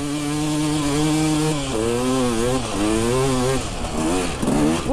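Dirt bike engine running close by: a steady idle for the first second or so, then the pitch wavers up and down with the throttle, with a few quick revs near the end.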